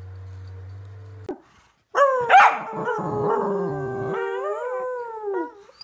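A corgi howling: one long howl starting about two seconds in, dropping in pitch at the start and then held for about three seconds. Before it there is a low steady hum for the first second or so.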